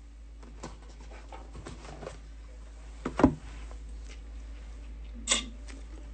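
Hands handling things on a tabletop: scattered light rustles and taps, with a sharp knock about three seconds in and another about five seconds in.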